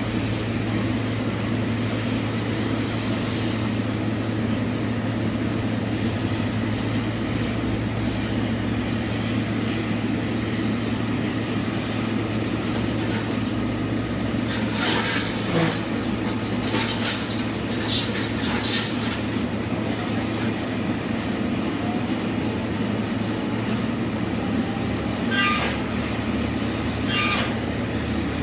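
Steady low drone of the Boeing 777-300ER's GE90 jet engines running at low power, with a few brief higher-pitched sounds over it in the middle and near the end.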